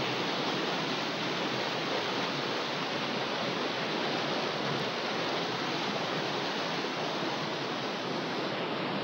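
A steady, even rushing noise of water.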